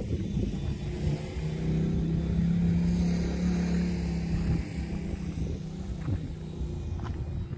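A motor engine running close by, its steady hum swelling for a few seconds about a second and a half in, then fading, over a low rumble.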